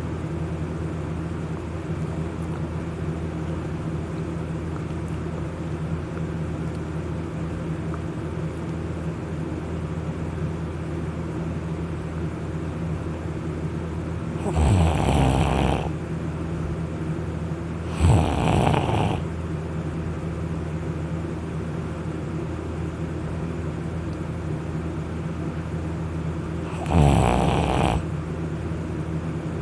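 A person deeply asleep on their back after drinking, snoring heavily: three loud snores of about a second to a second and a half each, the first about halfway through, the second a few seconds later and the third near the end, with long quiet gaps between.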